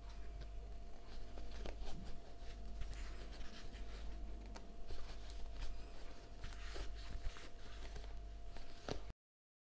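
Crochet hook working thick t-shirt yarn: irregular scratchy rustling and small clicks as stitches are pulled through, over a faint steady hum. The sound cuts off abruptly near the end.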